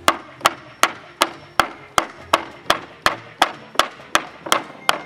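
A hammer knocking boards off a wooden pallet: sharp wooden strikes at an even pace of nearly three a second.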